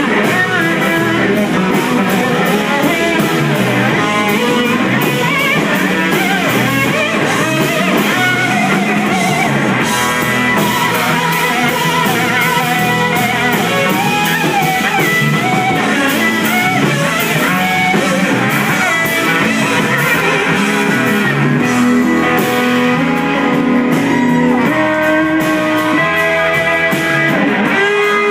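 Live band playing a blues-rock number: electric guitars, bass guitar, drum kit and keyboard, with two trumpets.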